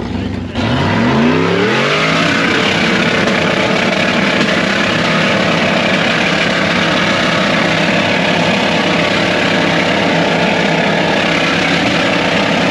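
Off-road 4x4's engine revving up sharply about half a second in, then held at high revs with a steady rush of noise over it.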